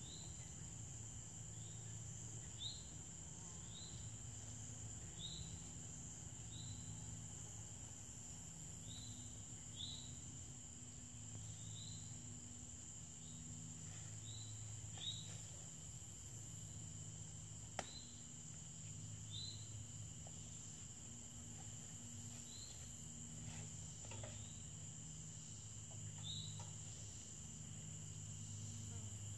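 Summer woodland insect chorus: a steady high-pitched drone of crickets, with a short high chirp repeating about every second and a half. A few faint sharp knocks stand out over it, the clearest about two-thirds of the way through.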